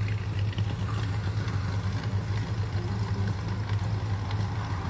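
Muscle car V8 engine idling steadily with an even, fast low pulse from the exhaust.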